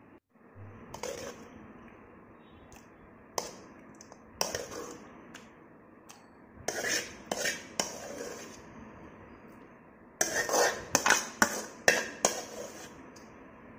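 Steel spoon clinking and scraping against steel cookware as cooked tomatoes are spooned from the pan into a stainless-steel mixer-grinder jar. The knocks come scattered at first, then in a quick, louder run near the end.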